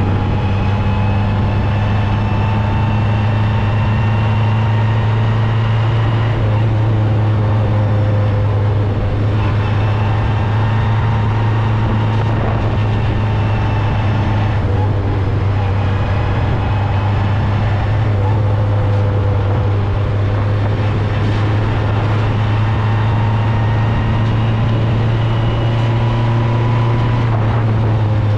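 Open-wheel single-seater race car's engine running under load as it laps a track, heard close from on board: a steady deep drone with higher tones slowly rising and falling with engine speed.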